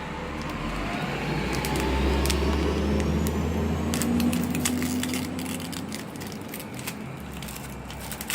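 A road vehicle going by, a deep rumble with a rising pitch that swells and then fades. In the second half come many small clicks and crackles of a cardboard box and its plastic packaging being opened by hand.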